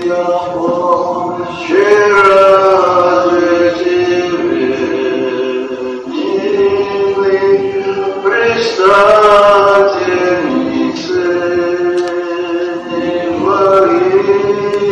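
A man singing an Orthodox church chant in long held notes, moving to a new pitch every few seconds.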